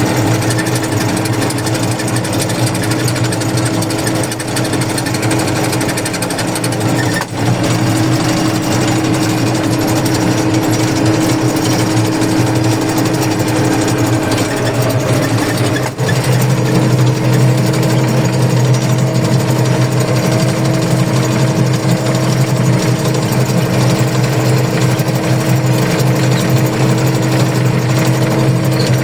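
Diesel engine of peat-harvesting machinery running steadily under load with a mechanical rattle. The sound dips briefly about seven seconds in, and about sixteen seconds in the low hum grows stronger.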